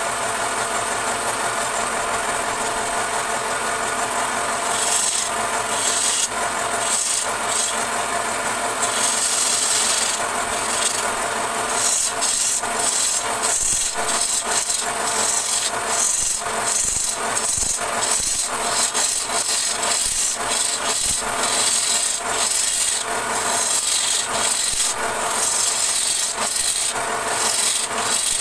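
A long-handled turning chisel cutting a spinning wooden blank on a wood lathe: a steady, rough scraping and rasping of the tool shearing off shavings as it is worked along the piece. The cutting flickers and grows more uneven from about five seconds in.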